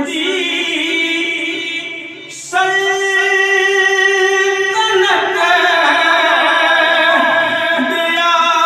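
A man's solo unaccompanied devotional chant in long held notes, with a short break about two and a half seconds in before a louder held note.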